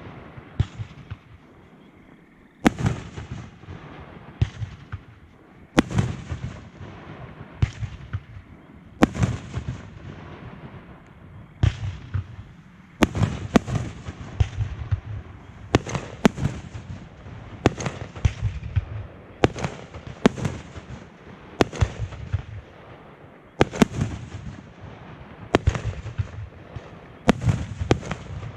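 Fireworks show: aerial shells and cakes bursting one after another, sharp bangs every second or two, some followed by crackling.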